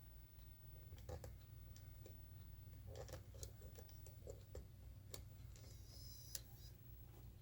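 Faint clicks and ticks from a JVC GR-AX7 VHS-C camcorder's buttons and cassette mechanism being worked, with a quick run of small ticks in the middle and a brief high whine near the end, over a low steady hum.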